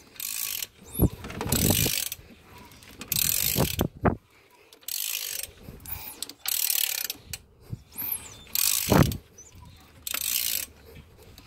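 Ratchet wrench clicking in about seven short strokes, with brief pauses between them, as the 2.7 L Chrysler V6 is turned over by hand to bring the timing chain marks around.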